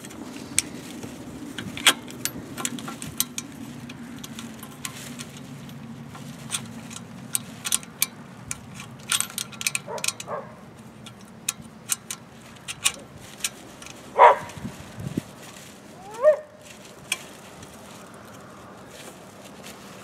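A dog barking a few times, about ten, fourteen and sixteen seconds in, the last bark rising in pitch. Under it come small clicks and rattles of hands working wires and screw terminals on a water pump's pressure switch, with a faint low hum that fades out in the first half.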